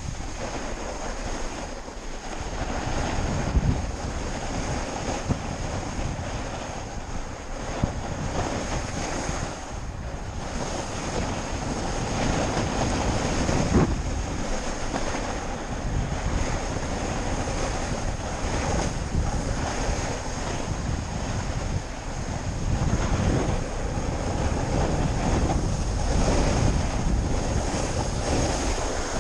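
Wind buffeting the microphone over the rushing scrape of a snowboard sliding on snow, swelling louder in stretches, with a few brief knocks.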